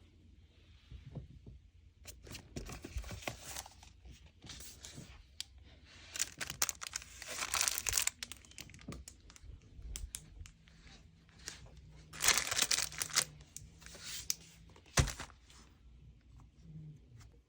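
Paper and packaging being handled: irregular rustling and crinkling with bursts of tearing and small clicks, loudest about seven and twelve seconds in.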